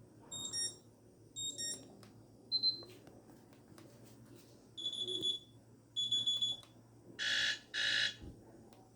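Alarm tones from a TV box played one after another: short high-pitched electronic beeps, mostly in pairs with one single beep, then two harsh buzzer bursts near the end, the beep and buzzer alarm presets.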